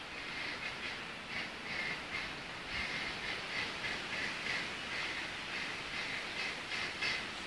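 A long run of short, rapid animal calls, about three or four a second, over a steady hiss of wind noise.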